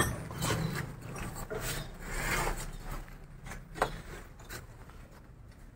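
Light rubbing and handling noises with a few soft knocks, and one sharp click about four seconds in.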